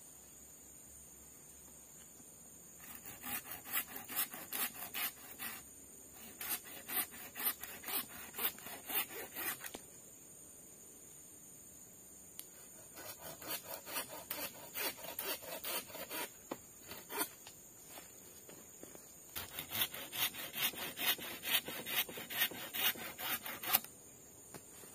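Hand saw cutting through a wooden pole in quick back-and-forth strokes, in three bouts with short pauses between them.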